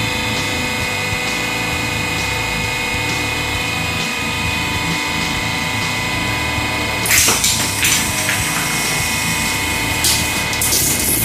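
Hydraulic press pump motor running with a steady whine of several fixed tones. Bursts of sharp cracking come a little past the middle and again near the end, which fit the stacked tempered-glass screen protectors breaking under the ram.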